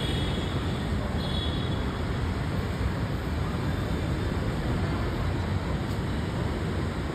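Steady rumble of city road traffic, with a brief high tone about a second in.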